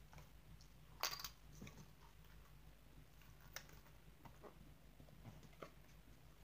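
Faint clicks and scrapes of fingers prying at a Poké Ball-shaped metal tin that will not open. A short cluster of louder clicks comes about a second in, then single clicks a few times.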